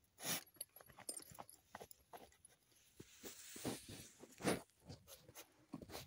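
Young jagdterrier digging into a burrow, biting and pawing at the soil: irregular scraping and crunching of earth, loudest once just after the start and again about four and a half seconds in.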